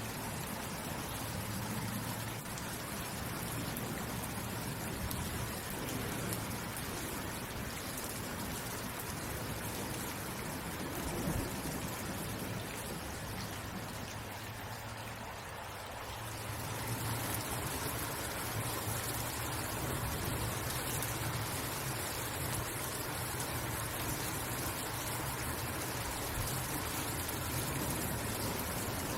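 Steady rain falling, an even hiss of drops. It eases slightly a little past halfway, then picks up again a bit heavier.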